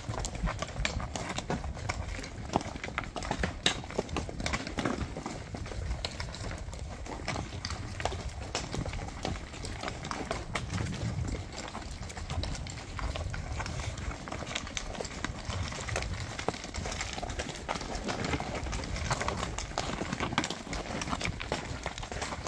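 Several horses walking on a loose rocky trail: hooves clopping and knocking on stones in an irregular patter of sharp clicks, over a low rumble.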